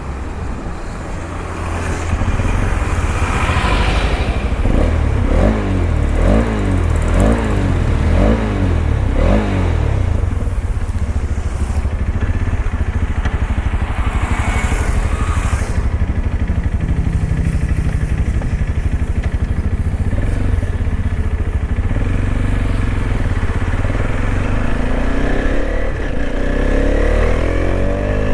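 TVS Apache RTX 300's single-cylinder engine accelerating hard, its revs climbing and dropping about five times in quick succession a few seconds in as it runs up through the gears, then running steadily at highway speed over a heavy low wind rush, picking up revs again near the end.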